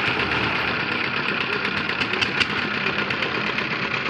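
An engine running steadily, with a few sharp clicks or knocks over it.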